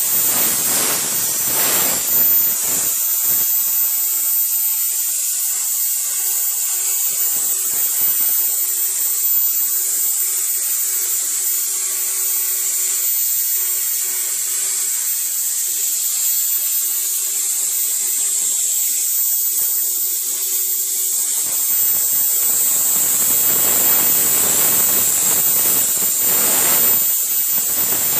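Plasma cutter running on a CNC table, a steady, loud, high-pitched hiss as it cuts. A faint steady hum sits underneath from about six to twenty-one seconds in.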